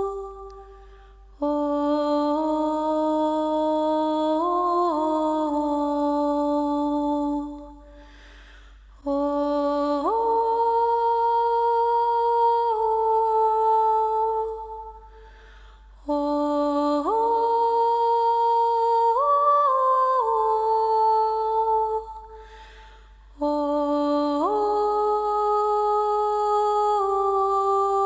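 Wordless hummed music: a voice holding long, steady notes in four phrases of about six seconds each, each phrase stepping up in pitch partway through, with short pauses between them.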